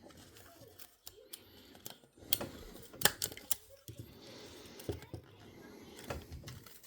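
Scattered sharp clicks and taps of small tools and parts being handled during work on the insides of a Sony MZ-R3 MiniDisc recorder, with a quick cluster of louder clicks around the middle.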